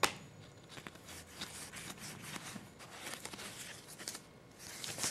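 Playing cards being handled: cards sliding against one another and set down on the table, a run of soft clicks and rustles with a sharp snap at the start and a denser flurry near the end.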